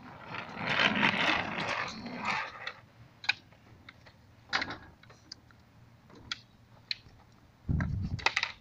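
Skateboard wheels rolling and rattling over a concrete path for about two seconds, then a few sharp clicks and knocks. There is a low thump near the end.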